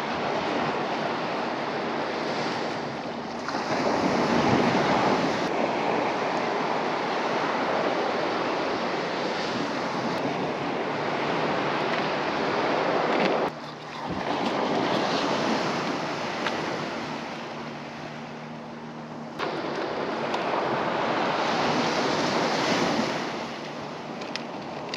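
Surf breaking and washing up the beach, with wind buffeting the microphone; the wash swells and eases, and changes abruptly a few times.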